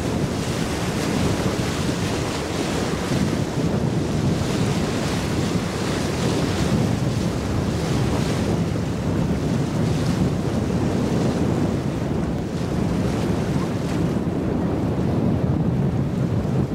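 Wind buffeting the camcorder's microphone outdoors by the river: a steady low rushing noise with no let-up.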